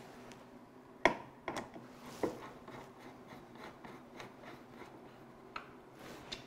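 Sharp clicks as a screw and screwdriver tip are set into a pilot hole, the loudest about a second in, then faint rubbing and small ticks as a hand screwdriver turns the wood screw into the wood.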